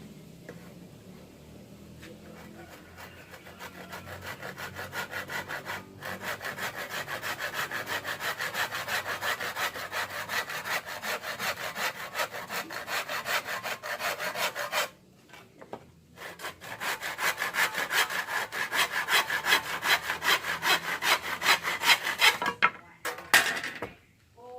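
Saw cutting through bamboo in quick, even back-and-forth strokes, stopping briefly about two-thirds of the way in, then starting again before a few last knocks near the end.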